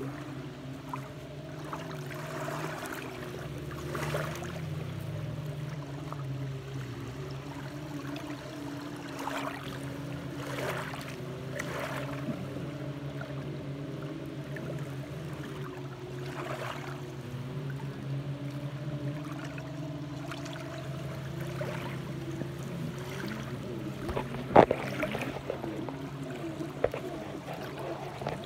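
Small lake wavelets lapping and trickling over shoreline pebbles in shallow water, with soft washes every second or two over a steady low hum. A single sharp knock near the end.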